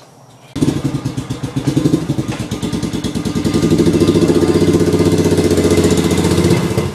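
Suzuki motorcycle engine running with a rapid, even pulse, cutting in suddenly about half a second in; its revs climb a few seconds in and then hold steady as it pulls away.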